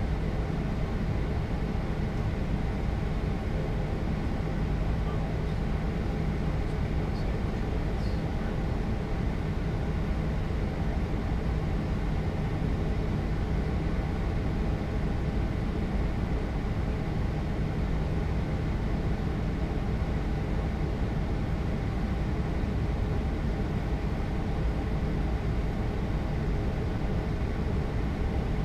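Steady flight-deck noise of an Airbus A220-300 in flight: an even rush of airflow with a low hum underneath, and a couple of faint ticks about seven to eight seconds in.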